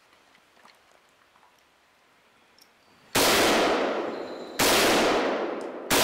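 Three shots from an AK-pattern rifle, about a second and a half apart, each followed by a long echo that fades until the next. The first comes about three seconds in, after a quiet stretch.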